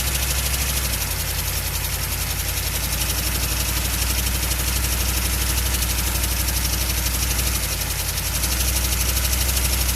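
Chevrolet van's 6.2-litre V8 diesel engine idling with a knocking noise. The low engine note shifts about a second in and again near the end.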